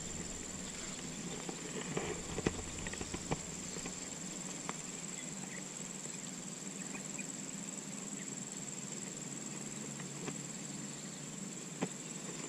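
Light, irregular clicks and taps of a spinning reel and rod being handled during a slow retrieve, a few close together about two to three seconds in, over a steady high-pitched whine.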